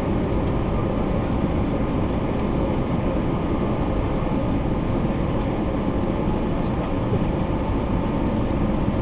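Steady drone of an Airbus A320 in flight on its landing approach, heard inside the passenger cabin: jet engine hum and rushing airflow, deep and even throughout.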